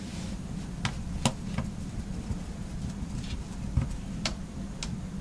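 Small, sharp, irregular clicks and taps, about seven in all, from a small screwdriver and tiny screws being tightened into the home-button bracket of an iPhone 6s Plus screen assembly. A steady low rumble runs underneath.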